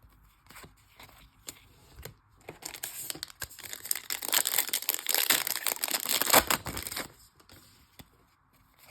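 A foil baseball card pack wrapper being torn open, crackling and crinkling for about four seconds, with a sharper rip near the end. Light handling clicks come before and after.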